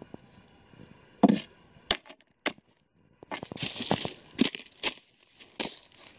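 Thin puddle ice breaking under a boot: a few sharp cracks, the loudest about a second in, then crunching and more cracks as the ice gives way.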